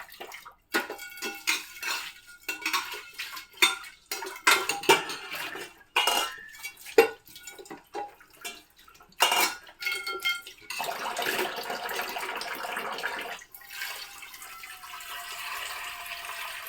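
Metal pots and utensils clanking and ringing as they are handled and rinsed at a sink. About eleven seconds in, tap water starts running steadily into a vessel.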